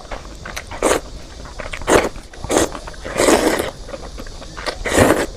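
Loud eating noises close to the microphone: a string of short, noisy mouth sounds, about one or two a second, the longest a little past three seconds in and again near the end.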